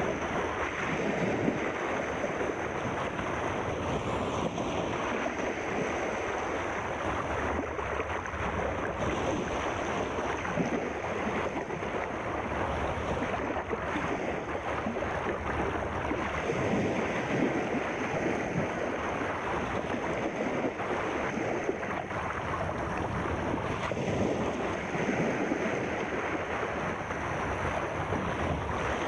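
Sea surf: a steady, even rush of waves with no separate breakers standing out.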